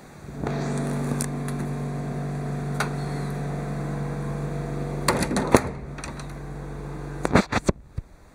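A steady low electric motor hum starts suddenly about half a second in and cuts off near the end, with several sharp clicks and knocks over it, the loudest just past the middle and just before the hum stops.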